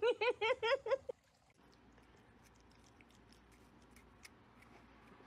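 A pet's rapid run of short, high chirping calls, about five a second, that stops about a second in. Only a few faint small clicks follow.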